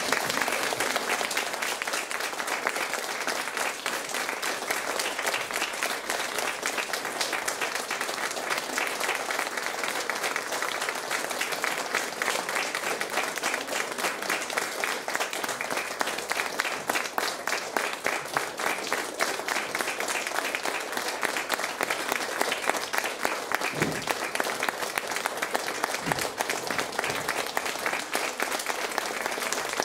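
Audience applauding, a dense steady applause that holds throughout.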